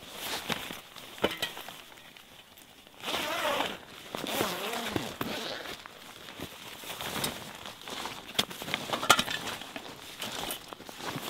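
Ripstop nylon fabric rustling and crinkling as a gear cover is pulled open and a backpack is handled, with snowshoe steps crunching in snow and a few sharp clicks.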